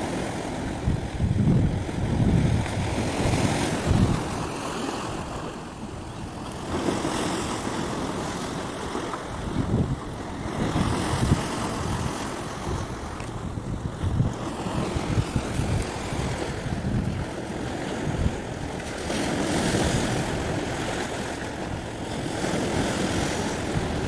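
Wind buffeting the microphone in irregular gusts, heard as a low rumble over a steady rushing noise.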